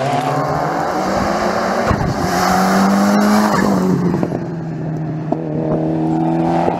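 Classic rally car engine running at high revs, its pitch climbing and then dropping about three and a half seconds in as the car passes close by.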